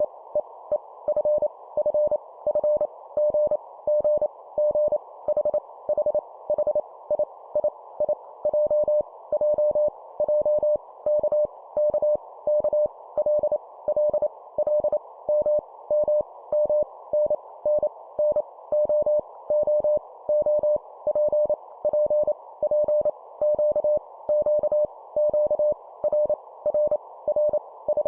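Morse code at 25 words per minute, sent as a keyed mid-pitched beep of short dots and longer dashes, each letter sent three times, over a steady background hiss.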